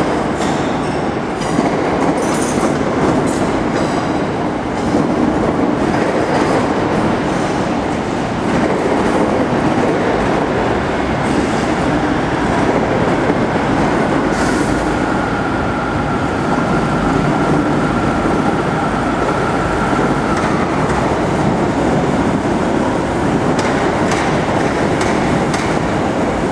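Passenger multiple-unit trains, a Class 314 electric and a Class 156 diesel, running slowly along the platforms with a steady rumble and wheels clicking over rail joints. A faint high steady whine is held for several seconds in the middle.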